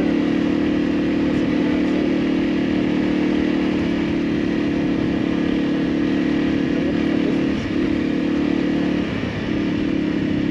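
Motorcycle engine running at a steady note while riding, with two brief dips in engine pitch and level near the end.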